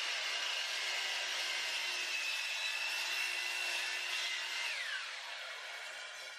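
Sliding compound miter saw running and cutting through a wooden board with a steady high whine. A little under five seconds in the saw is switched off, and the whine falls away as the blade spins down.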